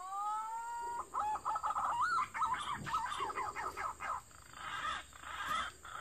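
A bird calling: a clear whistle that glides upward and holds for about a second, then a quick run of warbling notes rising and falling, followed by softer calls.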